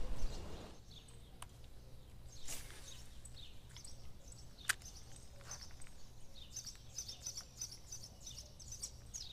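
Small birds chirping in short, high calls, with a sharp click about halfway through.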